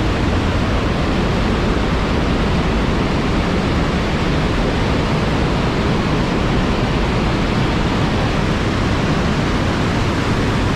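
Box Canyon Falls, an 85-foot cascade of Canyon Creek, pouring down close by: a loud, steady, unbroken rush of falling water, heaviest in the low end. It is really loud.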